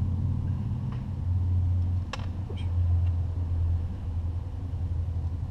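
A steady low rumble that swells and dips, with three faint small clicks as plastic pin-header connectors are handled and pressed into a circuit board.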